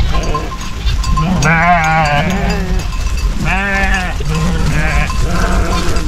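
A flock of sheep bleating as they run, with two long quavering bleats about a second and a half and three and a half seconds in, and shorter bleats between and after them, over a steady low rumble.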